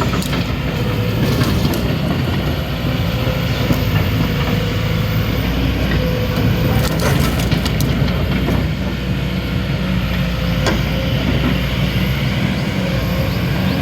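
Kobelco SK220 excavator's diesel engine running steadily, with a cluster of sharp metal knocks about seven seconds in.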